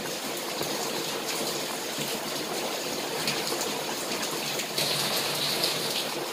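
Heavy rain falling steadily, with the soft rubbing and crunching of a hand working scalded sour cassava starch in a plastic bowl.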